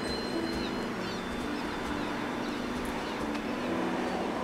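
Faint birds chirping briefly over low, steady background noise.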